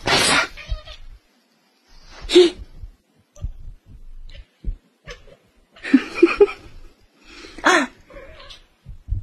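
A cat meowing in a few short calls, mixed with bursts of a person's laughter.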